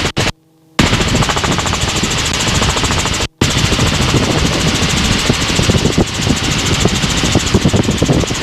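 Helicopter rotor and engine noise inside the cabin in flight: a loud, fast, steady chop of the rotor blades over engine noise, briefly cutting out twice.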